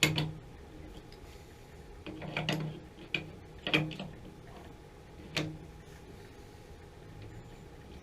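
Metal clinks and knocks of a wrench working the gas fitting on a water heater's gas control valve: a sharp clink at the start, a cluster of knocks about two to four seconds in, and one more a little after five seconds.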